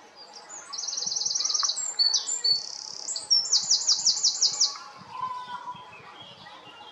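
A songbird sings one varied, high-pitched song built around two fast trills of rapidly repeated notes. The first trill comes about a second in, and the second, louder one comes about three seconds in.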